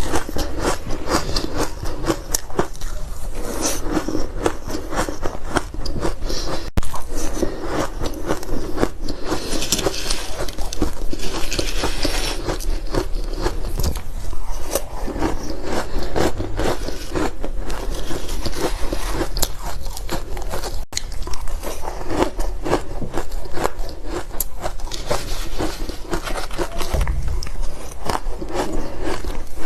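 Close-miked biting and chewing of powdery frozen ice: a dense, continuous run of crisp crunches and crackles.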